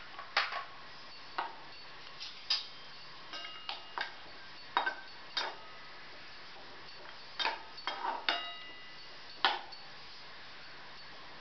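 Steel spatula knocking and scraping against a metal kadhai while chocolate pieces are stirred into milk to melt. The clicks come irregularly, some with a short metallic ring.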